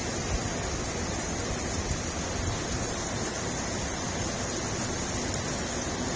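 Heavy rain pouring down in a steady hiss, with gusty wind rumbling on the microphone now and then.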